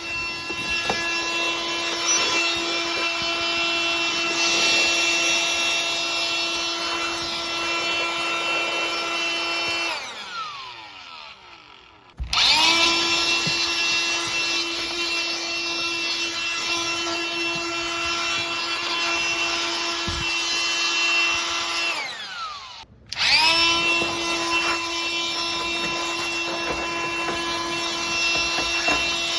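A Ryobi electric blower runs steadily with a high whine. It is switched off twice, about ten and twenty-two seconds in, winding down with a falling pitch, and each time it is started again a second or two later.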